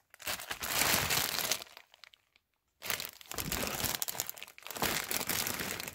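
Clear plastic storage bags packed with lace and ribbon trim crinkling as they are handled and shifted. The sound comes in two spells with a silent gap of about a second between them.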